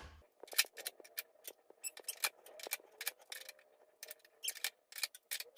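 Small plastic toy items clicking and clattering one after another as they are loaded by hand into a toy vending machine's top compartment: many short, irregular clicks, several a second.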